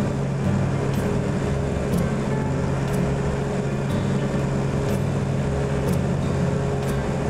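Cessna 210 Centurion's six-cylinder Continental engine and propeller running steadily in flight, a constant drone heard from inside the cockpit.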